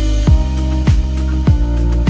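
Background music with a steady beat: a deep drum thump about every 0.6 seconds over held bass and chord tones.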